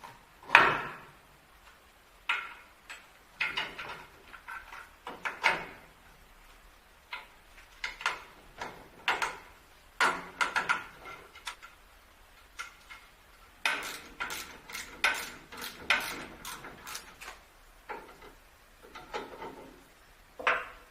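Irregular clicks, knocks and short scrapes of hard objects being handled, some in quick runs, with quiet gaps between; the loudest knock comes about half a second in.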